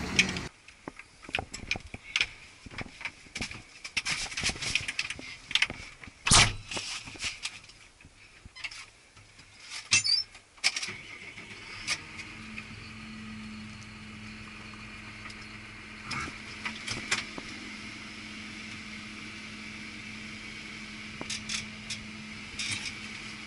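Irregular clicks and knocks of the cab door and controls of a Claas Arion 640 tractor being handled. About ten to twelve seconds in, the tractor's six-cylinder diesel engine starts and settles into a steady idle, heard from inside the cab.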